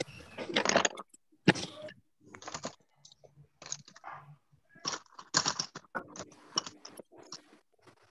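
Scattered, irregular clicks, taps and rustles from the participants' microphones on a video call, each cut off sharply into silence by the call's noise suppression.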